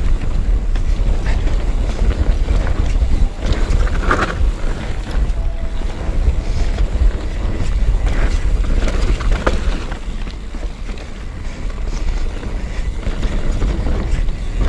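Wind buffeting an action camera's microphone during a fast mountain-bike descent, with the tyres running over a dirt and gravel trail and frequent knocks and rattles from the bike over rough ground.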